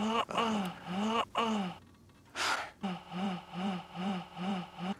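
A person's voice making wordless whimpering cries: four arching wails, a sharp gasp of breath, then six quicker, evenly spaced sobbing cries.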